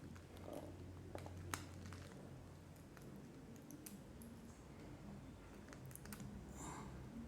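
Faint, scattered clicks and taps of small tools and phone parts being handled during phone reassembly, with one sharper click about a second and a half in.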